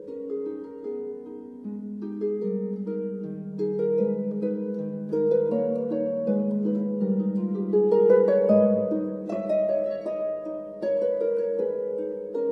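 Instrumental background music: a plucked string instrument, harp-like, playing a steady flow of arpeggiated notes that swells a little louder midway.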